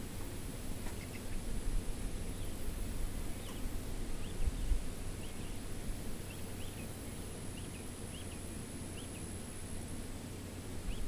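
Young chicks peeping: about a dozen short, high chirps scattered mostly through the middle, over a low rumble.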